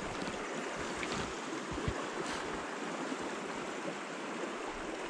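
Small creek running: a steady rush of flowing water.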